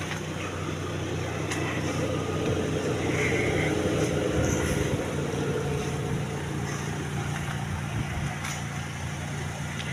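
Steady low hum of a motor vehicle engine running. A vehicle sound swells about two seconds in, is loudest around four seconds and fades by six, its pitch falling slightly, like a vehicle going by.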